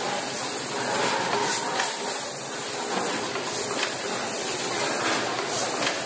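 Automatic blister packaging machine for tablets and capsules running: a steady hiss with clicks and knocks now and then from its pneumatic press stations and feed rollers.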